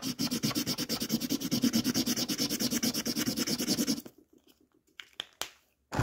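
Rapid back-and-forth scribbling on paper, colouring in, about seven strokes a second; it stops about four seconds in, followed by a couple of light taps.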